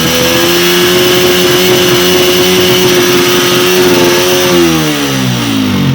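Honda CG 125's single-cylinder four-stroke engine held at a steady high rev, then dropping back towards idle about five seconds in. The bike is misfiring, which the mechanic traces to air leaking through a crack in the carburettor body.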